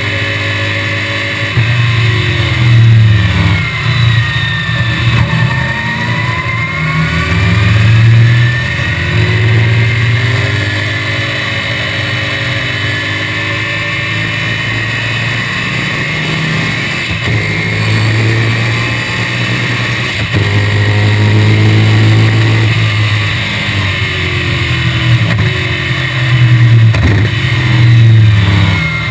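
1965 BTM Cheetah Roadster's small-block Chevrolet V8 heard from the cockpit at racing speed, its pitch climbing hard under acceleration and dropping back several times as the car shifts and brakes for corners.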